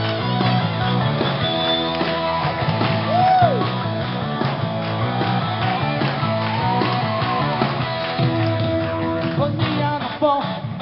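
Live rock band playing amplified electric guitars, bass and drums, loud and steady, thinning briefly about a second before the end.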